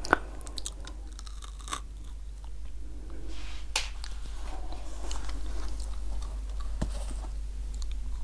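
Close-up chewing of candy-coated chocolate M&M's with a soft brownie centre: a few sharp crunches as the sugar shells crack, the loudest just at the start, then softer chewing, over a steady low hum.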